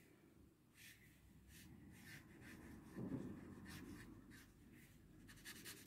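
Faint strokes of a felt-tip permanent marker on paper, with a soft low thump about three seconds in. Near the end the marker strokes turn into quick back-and-forth scribbling, several a second, as an area is filled in dark.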